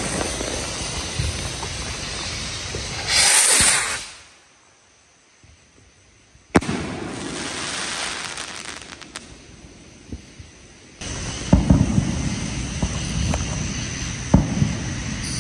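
Consumer firework rocket (Radioactive Rocket) going off: a loud hissing rush of launch about three seconds in, then a single sharp bang about six and a half seconds in, with a few scattered pops later.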